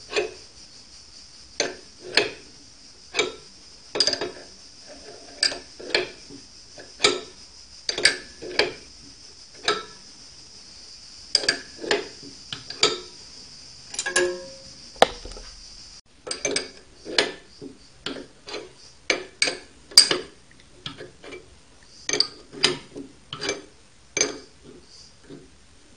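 Sharp metallic clicks and knocks, irregular, about one or two a second, from a C-spanner and the spindle parts being worked by hand on a small benchtop metal lathe.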